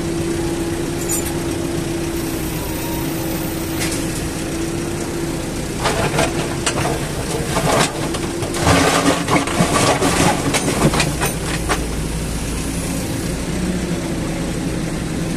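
Heavy diesel machine engine running steadily, with bursts of clattering about six seconds in and again from about nine to eleven seconds.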